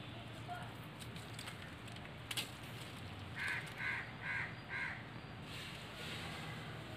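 A bird calling four times in quick, evenly spaced succession a little past the middle, each call short and harsh. A single sharp click comes about a second before the calls.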